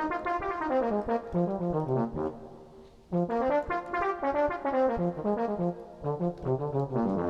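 Sampled brass patch from a software synth played on a keyboard: brass-section chords moving in two short phrases, with a brief gap about three seconds in.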